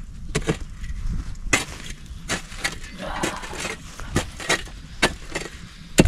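A long-handled hand tool digging and prodding at soil and stones in the bottom of a pit: a dozen or so irregular sharp knocks and scrapes, the loudest near the end.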